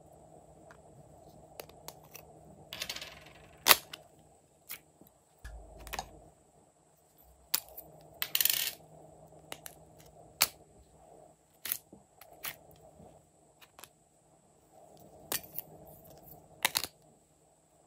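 Small plastic slime pots being handled and opened: a string of sharp clicks and taps of plastic lids and containers, with a couple of brief scratchy noises.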